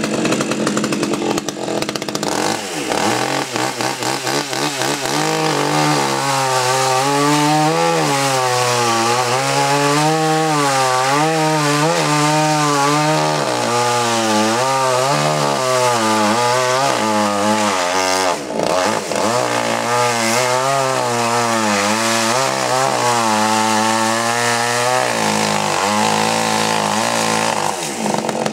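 Fuxtec two-stroke petrol chainsaw running under load while cutting wood, its engine pitch repeatedly dipping and rising as the chain bites, with a brief drop about eighteen seconds in.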